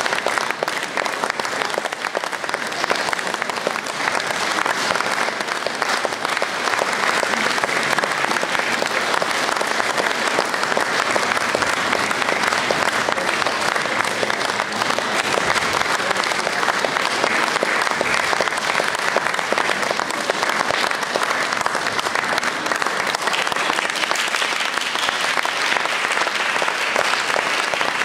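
Audience applauding, a steady, unbroken round of clapping.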